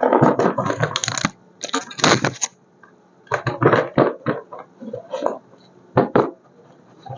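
Toy car packaging and parts being handled: irregular bursts of clicking and rustling with short pauses between them.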